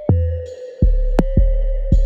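Electronic background music with a steady drum-machine beat: deep kick drums and sharp clicks over a sustained synth tone.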